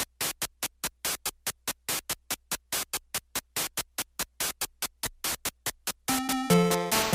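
Electronic background music: a run of quick, evenly spaced percussive ticks, about five a second, then a synth melody with a beat comes in about six seconds in.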